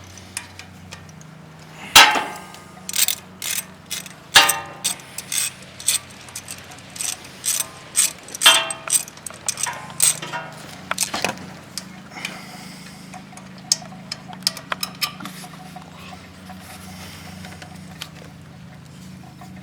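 Ratchet wrench with a 10 mm socket clicking in short irregular runs, with sharp metal clinks of the tool, as the ATV starter's mounting bolt is worked loose; the clicking dies out well before the end.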